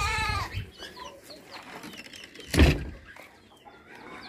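A short animal call with a bending pitch right at the start, then a single loud thump about two and a half seconds in.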